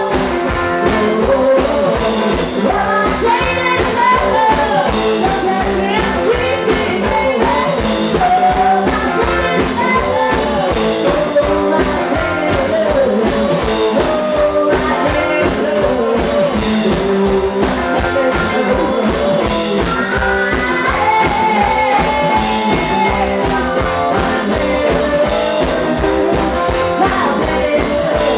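Live rock-and-roll band playing: a woman singing over an upright double bass, a hollow-body electric guitar and drums, with a fast, steady beat.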